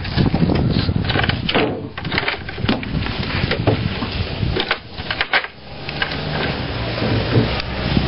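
A sheet of OSB being handled and shifted against a wooden box frame, with irregular scraping and knocks of wood on wood. A steady low hum comes in about six seconds in.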